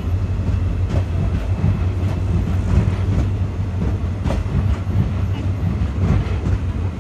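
Indian Railways passenger coaches rolling past on an arriving express train: a steady low rumble of the wheels on the rails, with a sharp clack every second or so as the wheels cross rail joints.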